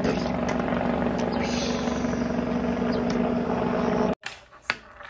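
A steady, aircraft-like engine drone sounds as a toy rocket-plane is flown through the air, cutting off suddenly about four seconds in. A few light clicks and taps of plastic magnetic toy pieces follow.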